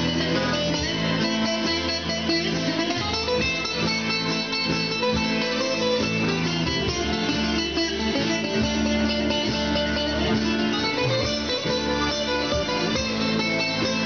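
A small live band playing an instrumental passage of Greek music, led by plucked string instruments.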